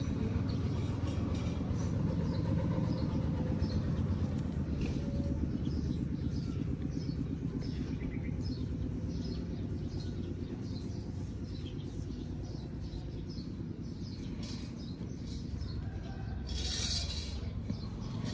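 A steady low rumble, with many faint, short high chirps over it and a brief hiss near the end.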